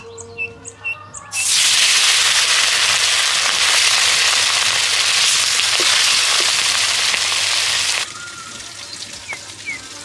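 Food hitting hot oil and masala in a kadhai and sizzling loudly with fish pieces in the pan. The sizzle starts about a second in and cuts off suddenly near the end, with a few short bird chirps before and after it.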